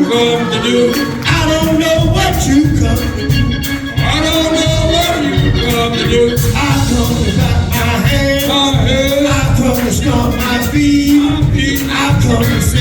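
Gospel praise and worship music: voices singing over a band with a steady beat.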